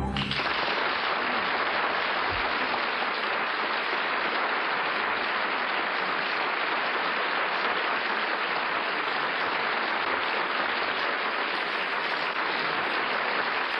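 Studio audience applauding steadily after the closing song, heard on a 1951 radio broadcast recording with a muffled, narrow sound.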